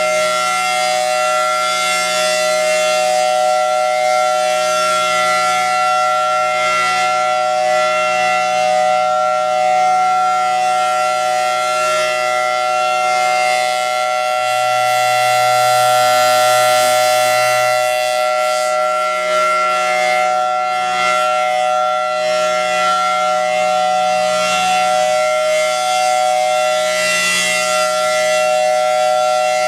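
Federal Signal Thunderbolt 1000T outdoor warning siren sounding the alert signal: a loud, steady, unwavering tone at full speed, with a slight swell in loudness about halfway.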